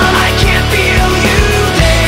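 Background music with a steady drum beat and a bass line that moves to a new note near the end.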